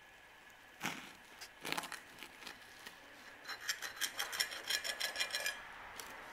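Kitchen knife sawing through a soft baked cake and scraping on the plate beneath: two short rubs about a second in, then a quick run of scraping strokes for about two seconds.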